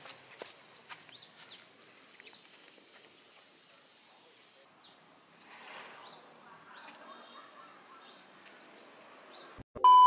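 Birds chirping: short, high, falling calls repeated a few times a second over faint outdoor background. Near the end a loud, steady test-pattern beep tone cuts in with a brief glitch.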